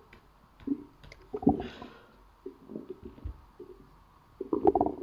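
A hungry stomach growling: irregular low gurgles and rumbles, with a louder gurgle about a second and a half in and a denser, louder run of rumbling near the end.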